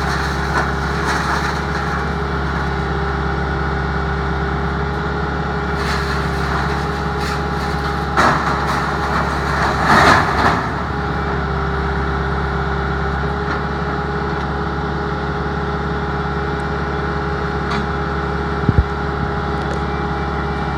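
Skid steer engine running steadily under hydraulic load with a constant whine as it drives a Bradco backhoe attachment. Two louder clattering bursts come about eight and ten seconds in, and a sharp knock near the end.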